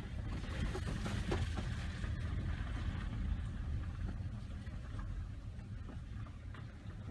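Car driving slowly on a rain-rutted gravel road, heard from inside the cabin: a steady low rumble of engine and tyres, with a few short knocks about a second in.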